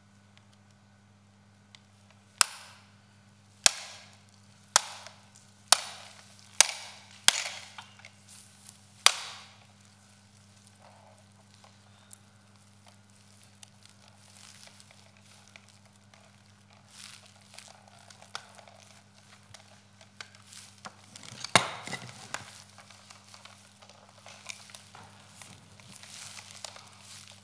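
Small hammer striking a hard object: seven sharp blows that come closer together. Quieter handling and rustling follow, then one loud crack about two-thirds of the way through.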